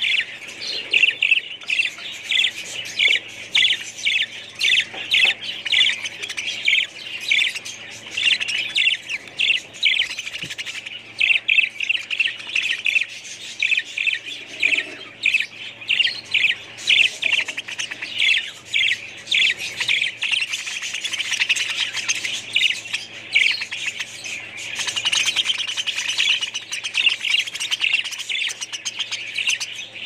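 A flock of budgerigars chattering continuously, a dense run of rapid, short chirps and squawks overlapping one another.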